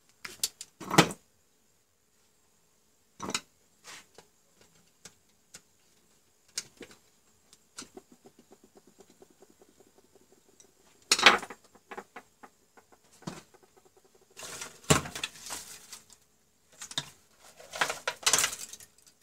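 Hand-tool handling on plastic modular circuit breakers: a screwdriver clicking and scraping at the terminal screws as a jumper wire is fitted, and tools clattering on the workbench. The loudest knocks come near the start, about halfway, and twice toward the end, with a quick run of faint clicks just before the middle knock.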